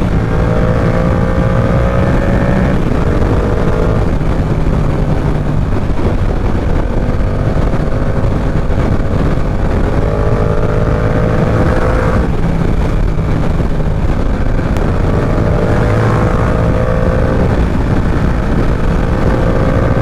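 Yamaha R7's parallel-twin engine running under way, its pitch climbing slowly in several stretches and breaking off between them as the rider works the throttle and gears, under heavy wind rush on the helmet microphone.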